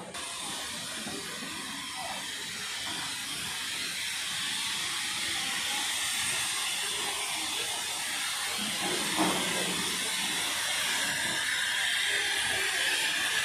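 Darjeeling Himalayan Railway narrow-gauge steam locomotive hissing steam as it slowly approaches, growing louder. A brief thump about nine seconds in.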